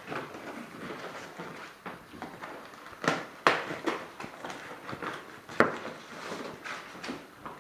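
Rustling, clicks and knocks as a backdrop screen kit is handled and unpacked, with a few sharper knocks around the middle.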